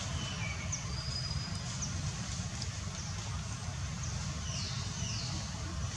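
Outdoor ambience: a steady low rumble with a few faint, short high chirps and downward-sliding whistles over it.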